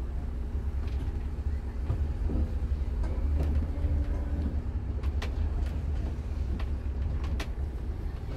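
Setra S 416 UL business coach heard from inside the cabin while pulling away and turning: a steady low engine drone, with several sharp clicks and rattles in the second half.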